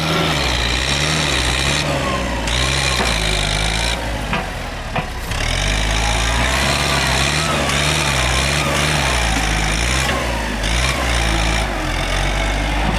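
Farm tractor engine running under load while its front dozer blade pushes soil, the engine note rising and falling. It eases off briefly about four seconds in and again near the end.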